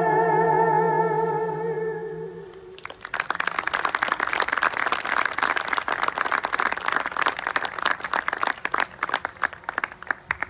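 A song ends on a long note sung with vibrato, which fades out about two and a half seconds in. Then the crowd of guests breaks into steady applause.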